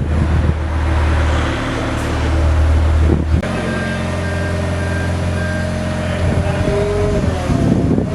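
A vehicle engine running steadily, its note changing about three and a half seconds in. Just after the change come about three short, evenly spaced high beeps, like a machine's warning alarm.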